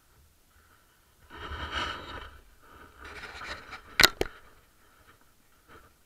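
Handling noise right at the camera: two stretches of rustling and scraping, then two sharp clicks in quick succession about four seconds in.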